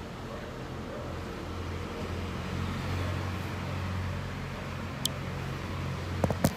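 A low, steady mechanical hum, swelling a little in the middle, with a light tick about five seconds in and a few sharp clicks just before the end.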